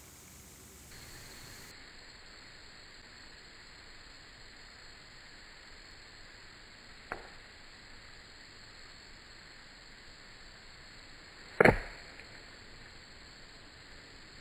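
An arrow shot from a compound bow arrives and strikes close by with one loud, sharp impact near the end. A fainter, sharp click comes a few seconds earlier.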